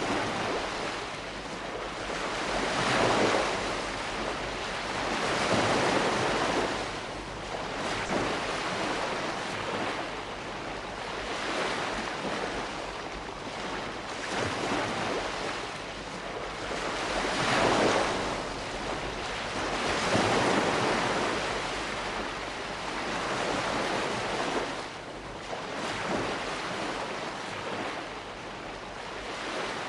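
Calm sea washing against the shore: a steady hiss of surf that swells and eases every few seconds as gentle waves come in and draw back.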